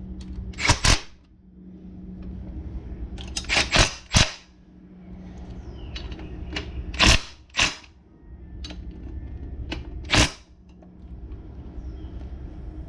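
Cordless impact driver hammering sprocket nuts tight in about seven short bursts, several clustered together, with pauses between them.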